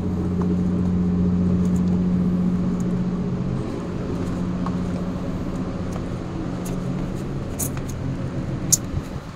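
Steady low hum of a ship's machinery, easing off gradually partway through, with a couple of light ticks near the end.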